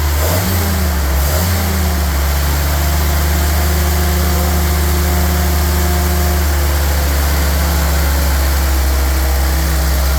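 Freshly rebuilt 1948 Willys engine running just after a cold start with the choke partly set. Its speed surges and wavers for the first couple of seconds, then it settles into a steady run.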